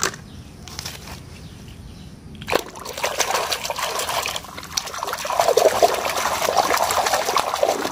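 Water splashing and sloshing as a hand swishes and scrubs a plastic toy under water to wash the mud off. After a quiet first two and a half seconds the splashing starts suddenly and keeps going, growing louder near the end.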